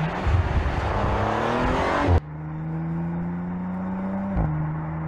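Audi RS5 Coupe's 2.9-litre twin-turbo V6 accelerating, its pitch rising for about two seconds. The sound then cuts abruptly to a steadier engine note that climbs slowly and drops sharply about four seconds in.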